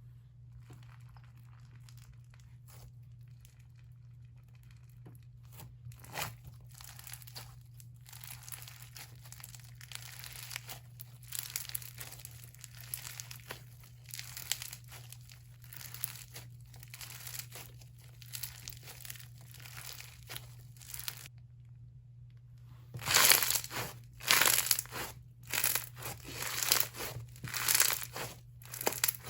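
Bingsu slime being squished and worked by hand, its beads giving a crinkly, crackling crunch. Near the end the crunches turn much louder and sharper, in a quick run. A faint steady hum lies underneath.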